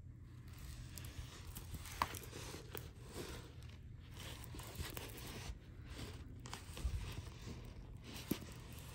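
Faint rustling and crinkling of a rolled diamond painting canvas and its clear plastic film being handled, with a few small knocks.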